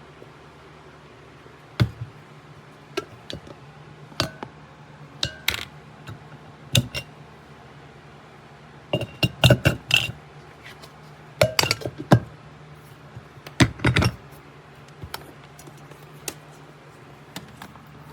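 Parts of a food chopper being handled: scattered clinks and knocks of glass and plastic pieces, some in quick clusters, over a steady low hum.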